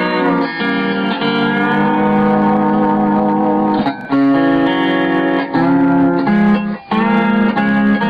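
Homemade six-string lap steel guitar built from a 2x4, played with a steel bar: sustained notes and chords that change about every second, with brief breaks about halfway and about three-quarters through.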